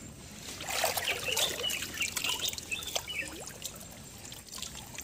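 Creek water sloshing and trickling as waders move and lift a net and a wet cloth bag, with bursts of high bird chirping in the first half.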